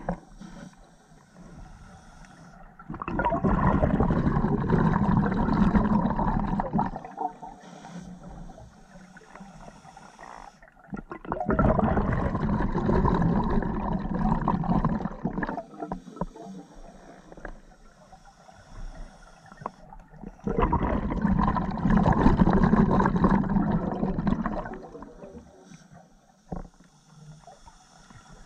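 Scuba diver's open-circuit regulator breathing underwater: three long bursts of exhaled bubbles, about nine seconds apart, with a quieter hiss between them as the diver breathes in.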